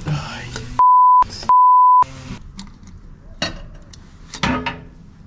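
Two short censor bleeps, each a steady 1 kHz tone, blanking out swearing about a second in. Then a few sharp clicks and knocks.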